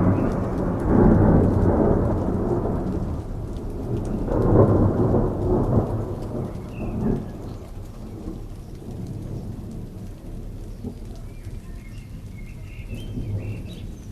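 Steady rain with rolls of thunder: a loud roll right at the start and another about four seconds in, then the thunder fades and the rain goes on alone.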